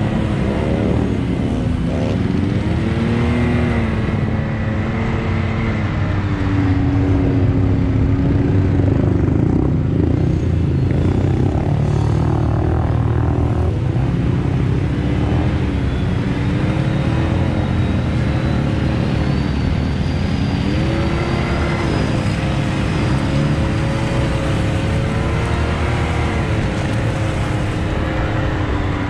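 Side-by-side UTV engines running and revving on dirt, the pitch rising and falling again and again as they accelerate and ease off.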